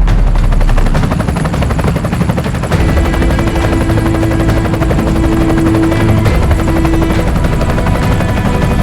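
Helicopter running close by, its main rotor beating out a rapid, even chop with engine noise beneath it.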